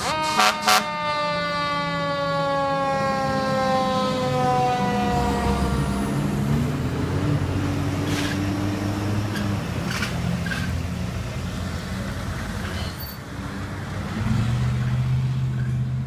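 Fire apparatus and ambulance passing on an emergency response: two short, very loud horn blasts, then a siren winding down, falling steadily in pitch over about six seconds. The low rumble of the trucks' engines runs underneath, with a heavier engine drone coming up near the end.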